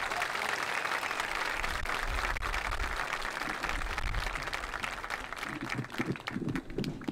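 Audience applauding, a dense patter of many hands that thins out after about five seconds.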